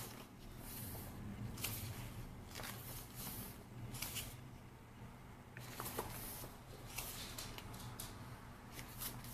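Glossy photobook pages being turned by hand: soft paper rustles and flips about once a second, over a low steady hum.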